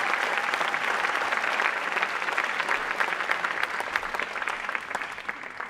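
Audience applauding, the dense clapping slowly dying down toward the end.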